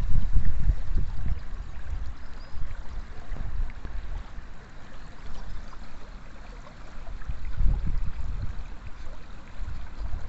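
Steady rush of shallow river water, with wind buffeting the microphone in uneven low gusts that ease off around the middle and pick up again near the end.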